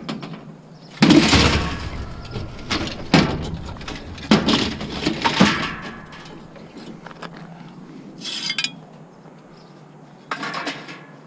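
Metal junk being handled and dropped: a run of loud clanks and clatters in the first half, then two shorter rattles.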